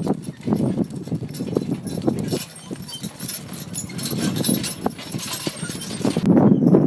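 Hooves of a two-horse team thudding irregularly on soft arena dirt as the horses pull a wagon.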